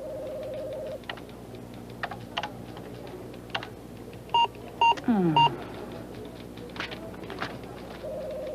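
Computer keyboard keys typed in scattered single strokes, with a computer's electronic sounds: a steady tone for about the first second, three short beeps about half a second apart near the middle, then a tone sliding down in pitch.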